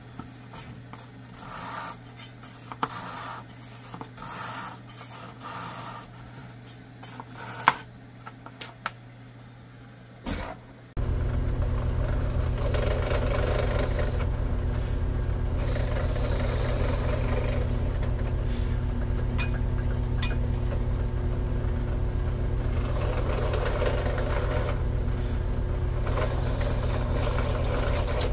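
A fine-toothed hand saw rasps through a wooden dowel in short strokes. From about eleven seconds in, a bench drill press runs loudly and steadily, its bit boring into a small block of wood.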